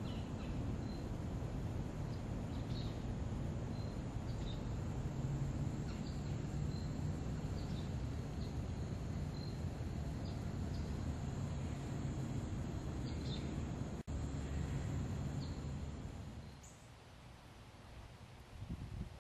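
Outdoor garden ambience: a steady low rumble under a continuous high-pitched insect drone, with short bird chirps every second or so. The low rumble drops away about three seconds before the end, leaving the insects and chirps fainter.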